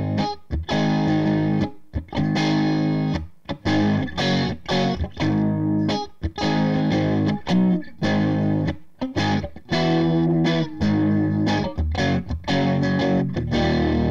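Carvin DC400 electric guitar played through a Cris Custom 3.5 combo amp and a 1x12 Celestion Vintage 30 cabinet on a crunch setting. It plays a distorted rhythm riff of chords broken by many short, sharp stops.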